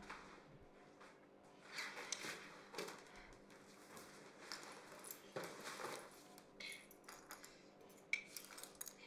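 Faint rustling with a few light clicks and clinks of small objects being handled, sharper and more frequent near the end.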